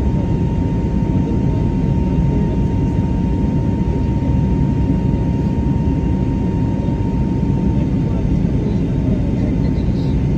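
Airliner noise: a steady, loud low roar, with a thin steady high tone that fades out about seven seconds in.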